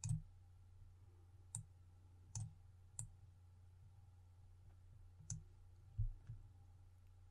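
Computer mouse button clicking, about seven sharp clicks at uneven intervals, over a faint steady low hum.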